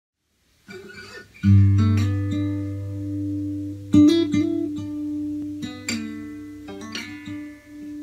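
1979 Sigma DM18 acoustic guitar with a solid spruce top, fingerpicked: a few soft notes, then a deep bass note struck about a second and a half in and left ringing under picked treble notes, with another strong attack about four seconds in.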